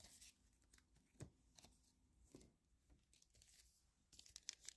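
Mostly near silence, with a few faint soft clicks and rustles of trading cards being handled. About four seconds in, a quick run of sharp crackles begins: a foil booster-pack wrapper being handled.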